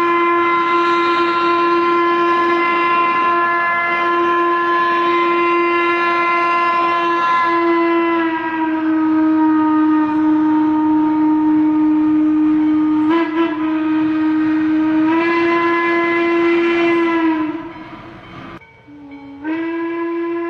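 Steam whistle of Western Maryland Scenic Railroad's 2-6-6-2 steam locomotive No. 1309 blowing one long blast, its pitch sagging a little about eight seconds in and rising again near fifteen seconds, with a brief stutter in between. The blast cuts off shortly before a short lull, then a new blast starts near the end.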